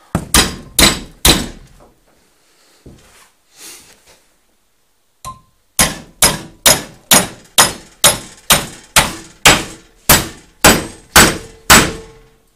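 Sledgehammer blows on a steel bar clamped in a vise, testing the strength of a gas-shielded MIG weld: three ringing metal strikes, a pause of about four seconds, then a steady run of about a dozen more at roughly two a second. The weld bends and crumples under the blows without breaking apart.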